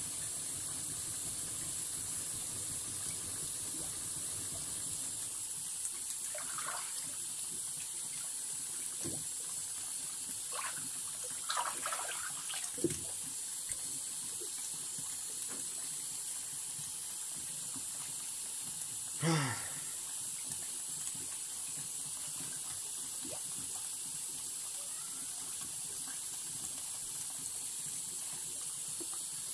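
Tap water running steadily into a sink, a constant hiss. A few short knocks of handled stones come in the middle, the loudest a little after halfway.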